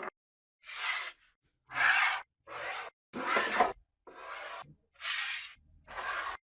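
Repeated abrasive hand strokes, rubbing rust off the old hand drill: about seven short scraping strokes, each about half a second, with brief pauses between.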